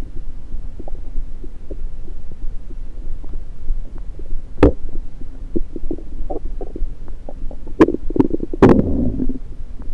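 Stomach gurgles picked up through a stethoscope pressed on the belly: a steady low hum with scattered small pops, a sharp pop about halfway through, then a burst of bubbly gurgling near the end.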